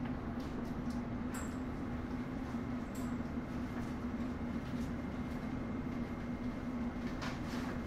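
A London Underground S7 stock train heard from inside the carriage: a steady hum over even noise, with a few faint clicks and rattles.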